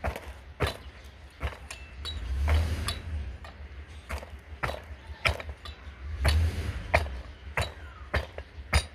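Repeated sharp metallic knocks, about a dozen at an uneven pace, as a long steel pipe is driven down over the rack shaft to tap a power steering rack seal into its housing until it seats fully. Two brief rushes of noise come in between.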